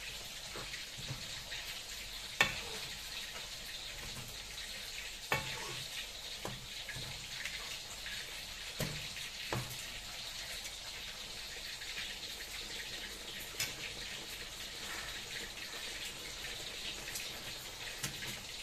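Chayote and tofu with spices sizzling in a pan on a gas stove, a steady hiss, while a metal ladle stirs them and knocks sharply against the pan now and then, loudest about two seconds in.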